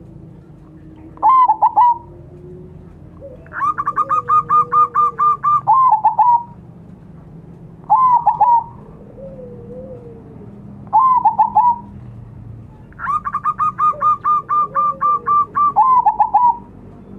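Zebra dove (perkutut) singing its staccato cooing song in five phrases. Three are short bursts of a few notes. Two are long runs of rapid repeated notes that end in a few lower coos.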